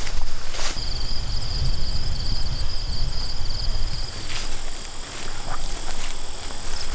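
Footsteps swishing through tall grass and brush, with insects trilling steadily in the background: one pitch for the first half, a higher one from about halfway on. A low rumble runs under it all.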